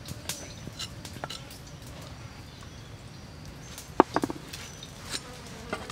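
Light clicks and taps of wooden utensils being handled over a wooden bowl, with one sharper knock about four seconds in. Underneath is a faint outdoor background with thin high chirps.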